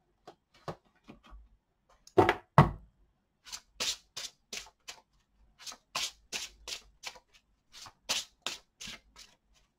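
A deck of cards shuffled by hand in quick strokes, about three a second, with two louder slaps about two seconds in.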